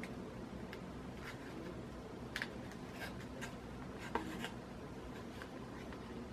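Faint handling noises of fingers arranging false eyelashes in their small storage box: light rubbing and scattered small clicks, sharper about two and a half and four seconds in, over a low steady room hum.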